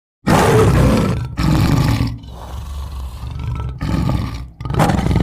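Tiger roaring and growling as a sound effect: a run of rough, loud roars, the first the loudest, broken by short pauses and carrying on past the end.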